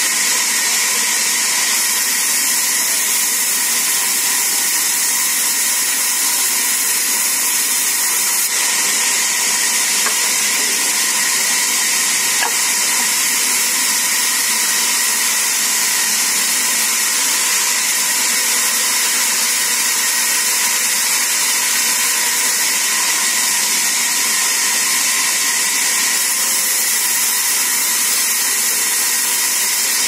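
Sawmill band saw running and cutting mango wood: a loud, steady, high-pitched hiss that does not let up.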